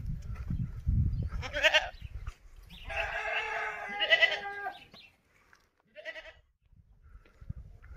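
Goat bleating: a short bleat about a second and a half in, then a long wavering bleat, and a brief one near the end.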